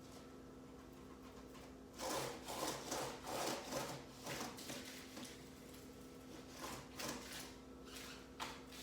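Rubbing and scraping, like something being handled or wiped against a hard surface. It comes in a dense run about two seconds in, lasting a couple of seconds, with a few softer scrapes later, over a faint steady hum.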